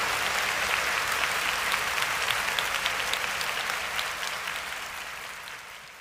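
Crowd applause, a dense patter of many claps, fading out steadily towards the end.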